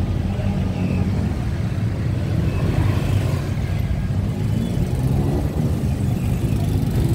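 City street traffic: cars and motorbikes passing on the road, a steady low rumble of engines and tyres.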